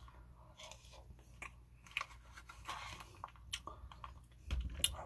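A spoon scooping crumbled feta cheese out of a plastic tub: scattered small clicks and scrapes, with a louder knock near the end.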